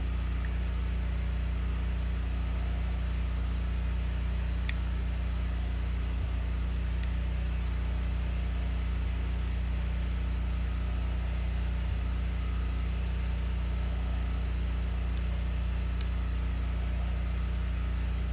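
Steady low background hum, with a few faint light clicks as small carburetor parts are handled.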